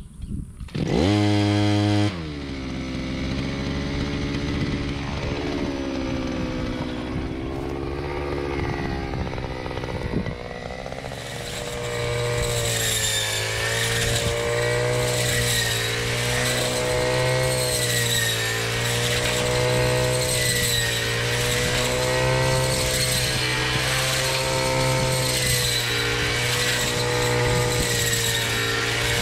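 Petrol brush cutter starting up about a second in with a brief loud burst, then running at part throttle with a wavering pitch. From about 12 seconds it runs louder and steadier at higher speed as the blade cuts standing grain.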